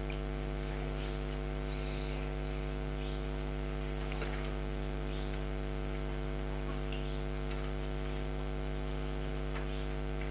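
Steady low electrical mains hum on a wired microphone line, with faint soft rustles now and then.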